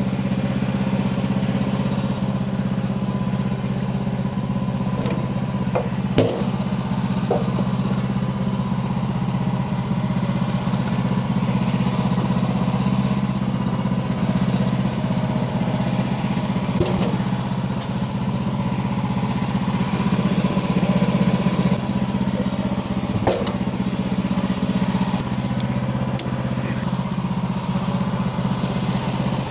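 Portable sawmill's small gasoline engine running steadily while sawing a log, with a few short knocks along the way.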